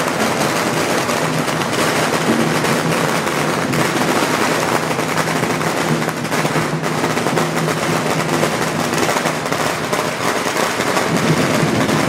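A long string of firecrackers going off in a continuous rapid crackle that does not let up, over a faint steady low hum.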